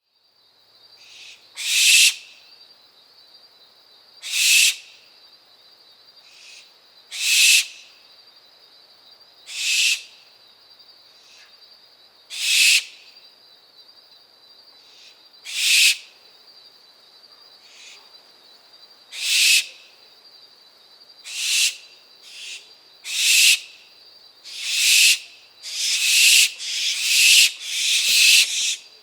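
Barn owl fledgling making its begging 'snore' calls: harsh, hissing screeches about half a second to a second long, repeated every two to three seconds with fainter ones in between. Near the end they come faster and run together.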